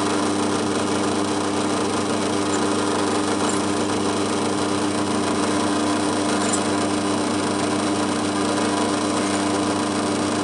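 Drill press motor running steadily at a constant pitch while drilling a 4.5 mm hole through a spacer block held in a vise.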